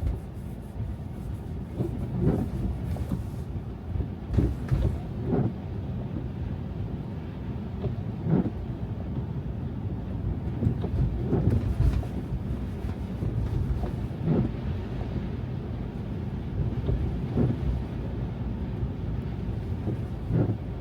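Car driving on a snow-covered road: a steady low rumble of tyres and engine, broken by irregular dull thumps as the car goes over bumps.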